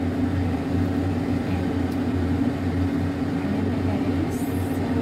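A steady low mechanical hum, with a brief faint high hiss a little after four seconds in.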